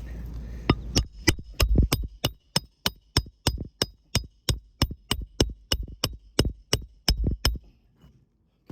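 A hammer strikes metal about twenty times in a steady rhythm of roughly three blows a second, each with a short metallic ring. This is the sound of nailing during asphalt shingle repair on a roof. The blows stop about a second before the end.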